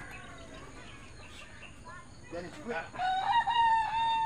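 A rooster crowing once, one long call starting about three seconds in, with fainter fowl calls before it.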